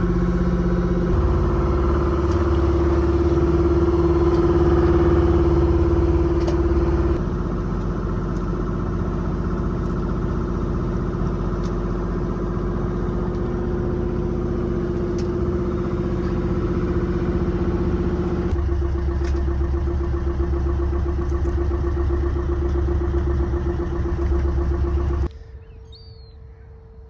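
Small sailing yacht's auxiliary engine running steadily under way, a droning hum that changes character abruptly a few times at edits. About 25 seconds in it cuts to a much quieter scene with a faint steady tone and a short bird chirp.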